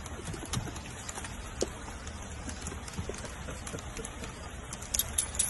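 Rain falling steadily on a wet wooden deck, with scattered drips and small taps.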